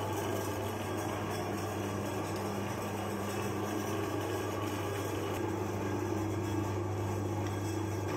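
Electric meat grinder's motor running steadily with a low, even hum while it grinds chocolate bars through its auger and plate.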